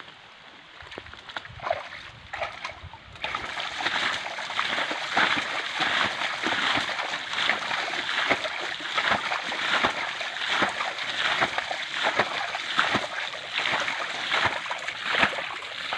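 Shallow muddy water being bailed out by hand: quick repeated scoops that splash and slosh as the nearly drained pool is emptied. It is quieter for about the first three seconds, then the splashing runs on fast and steady.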